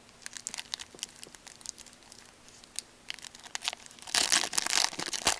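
Trading cards being handled with light clicks and flicks, then about four seconds in a plastic card-pack wrapper crinkling loudly as it is torn open.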